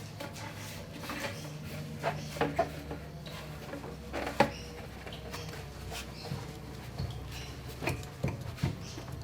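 Scattered clinks and knocks of tools or parts being handled, loudest a little after two seconds in, at about four and a half seconds and near the end, over a steady low hum.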